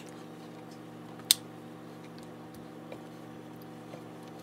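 Raw butternut squash slices being laid by hand into an aluminium foil pan: a few light ticks and one sharp click about a second in, over a steady hum.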